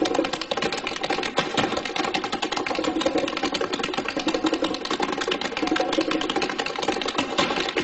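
Rapid, continuous tap-dance taps over big-band accompaniment.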